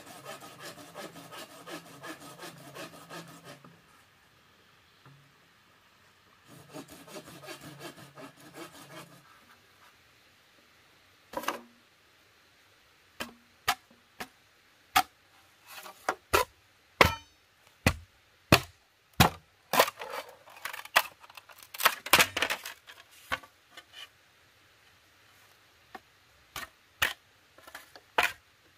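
Bamboo being hand-sawn in quick, even rasping strokes, in two spells with a pause between. Then sharp knocks of a machete chopping into a bamboo pole, about one a second, with a quick run of blows in the middle.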